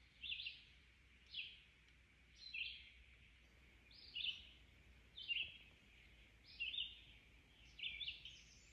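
A bird calling faintly in the woods: a short chirp repeated about once every second and a quarter, the calls coming closer together near the end.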